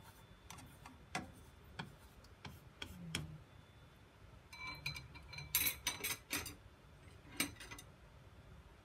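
Chopsticks clicking and tapping against a nonstick frying pan while working a thin layer of beaten egg cooking in butter: scattered light ticks, with a quick cluster a little past halfway and one more shortly after.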